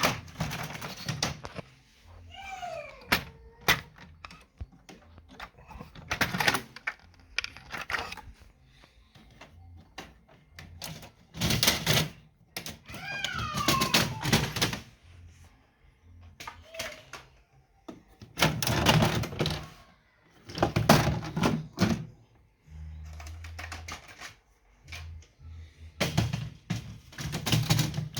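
Faulty Brother printer's mechanism grinding and clattering in repeated bursts of a second or two. Twice a short falling whine rides over the clatter.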